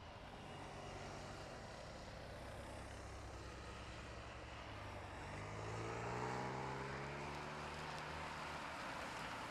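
Police motorcycle engine running steadily, then revving up with a rising pitch about five seconds in as it rides past.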